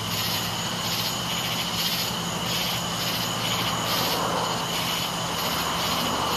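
Crickets chirping in a steady pulsing chorus of about two pulses a second, over a low steady drone that swells slightly in the second half.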